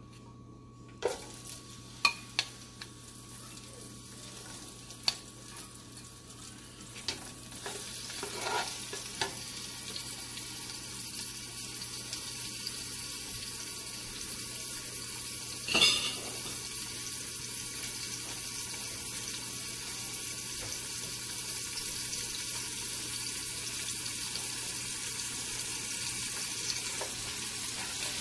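Boiled lamb pieces frying in hot oil in a nonstick pot. The sizzle builds over the first several seconds as the meat goes in, then holds steady. A few sharp clacks come near the start and one loud knock about halfway through.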